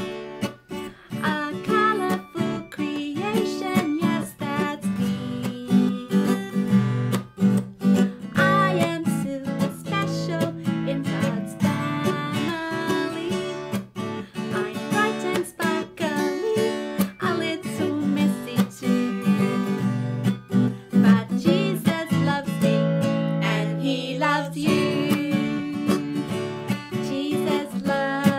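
Acoustic guitar strummed in a steady rhythm, accompanying a woman singing a children's song.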